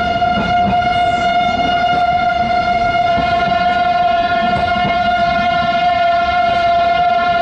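A local passenger train's horn held as one long, steady note, heard from aboard over the rumble of the train running on the track, with a few faint wheel clicks. It is sounded as the train approaches a level crossing.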